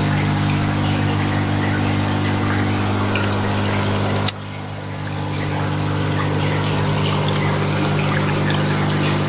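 Aquarium pumps humming steadily, with water trickling under the hum. A single sharp click about four seconds in, after which the sound drops and slowly swells back.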